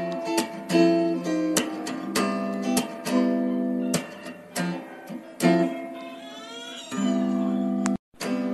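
Background music: an acoustic guitar strumming chords in a steady rhythm, cutting out for a moment near the end.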